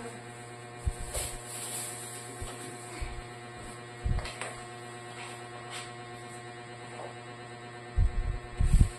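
Steady electrical hum under light clicks and knocks of plastic dishware being handled and set down on a counter and dish rack. Near the end come a few heavy, dull low thumps, the loudest sounds.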